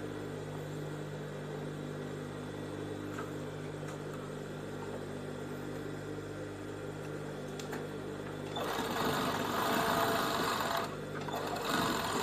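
Industrial four-thread overlock (serger) machine: a steady motor hum, then about eight and a half seconds in it starts stitching the seam, stops briefly, and starts stitching again near the end.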